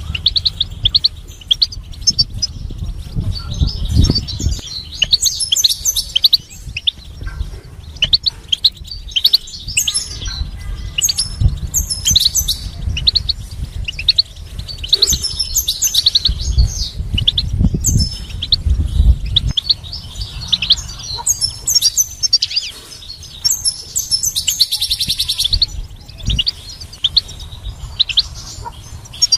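European goldfinch singing: a long run of quick twittering and chirping notes, with a fast even trill about 25 seconds in. Dull low thumps sound underneath at times.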